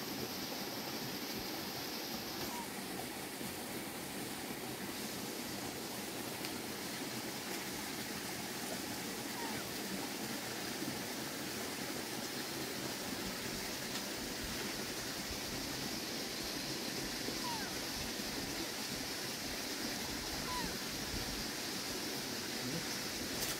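Steady rushing of flowing water, with a few faint, short, high chirps now and then.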